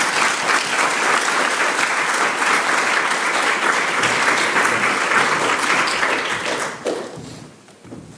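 Audience applauding: dense clapping from many hands that dies away about seven seconds in.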